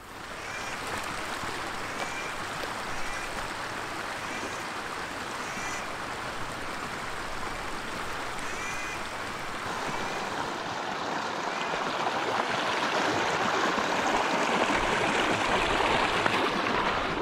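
Small mountain creek rushing and splashing over rocks, growing louder over the last several seconds. A bird chirps briefly several times over the water.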